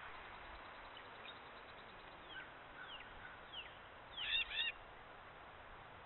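Animal calls: a few faint whistled notes sliding downward in pitch, then a louder, brief two-note call about four seconds in.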